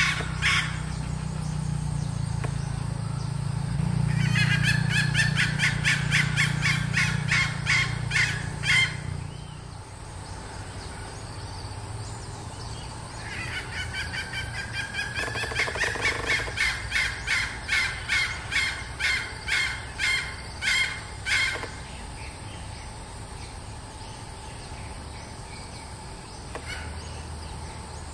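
Red junglefowl hen (a decoy hen) giving two long runs of rapid clucks, one from about four to nine seconds in and another from about thirteen to twenty-two seconds in, the second slowing toward its end.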